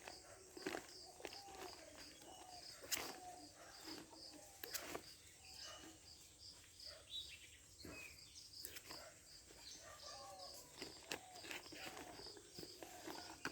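Faint outdoor background: a high chirp repeating about twice a second, with scattered short clicks and taps.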